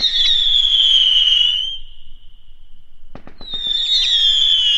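Firework screamers: two long shrill whistles, each starting with a few sharp crackles and sliding slowly down in pitch. The first fades out about two to three seconds in, and the second starts just after, about three seconds in.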